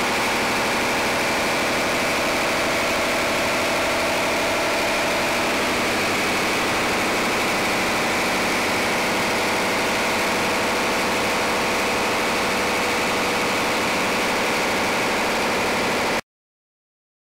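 Paxman 12YJ V12 diesel engine running steadily on a test bed during its final test. The sound cuts off suddenly near the end.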